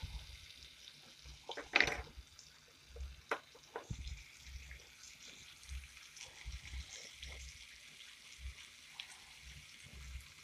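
Breaded pork chop frying in oil in a stainless steel skillet, a steady soft sizzle. A few sharp clicks and knocks sound over it, the loudest about two seconds in.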